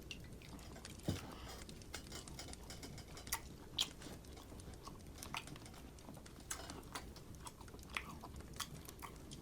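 A person chewing and eating food, with faint short clicks scattered irregularly through it.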